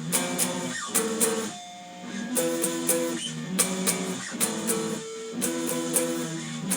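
Guitar power chords struck in short groups of two or three hits, with brief gaps between the groups: a rock riff being tried out chord by chord.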